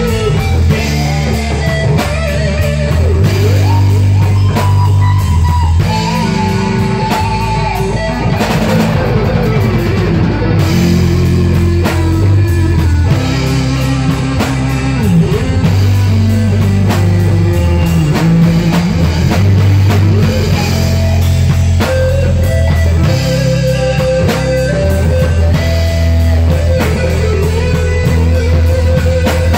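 Amplified rock band jam: electric guitar playing melodic lead lines over a steady bass guitar line and a drum kit beat, continuous and loud.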